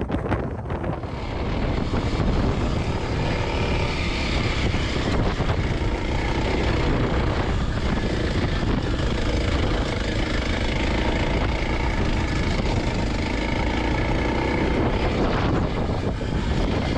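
Kawasaki KLX300's single-cylinder engine running steadily, with strong wind buffeting the microphone as a deep rumble underneath.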